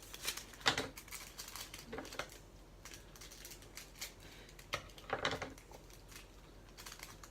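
Scattered light clicks, taps and plastic crinkles of small diamond-painting drills and tools being handled, with louder clusters about a second in and around five seconds in.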